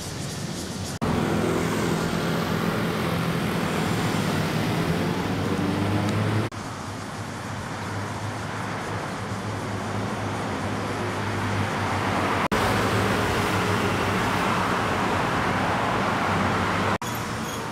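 Road traffic noise: motor vehicles running on a city street, with a low engine hum. The sound changes abruptly about a second in, around the middle and near the end, where separate clips are spliced together.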